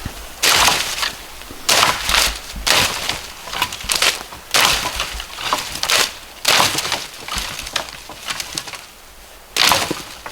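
Footsteps crunching through dry brush and ground litter, about one step a second, each a short rustling crunch.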